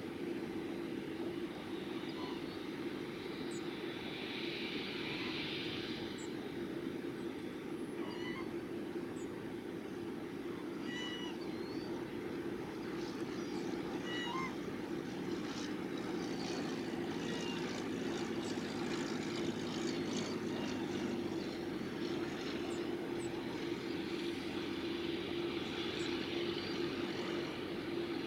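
Steady drone of jet aircraft running on the airfield, with a constant tone in it. A few faint short bird chirps come through in the middle.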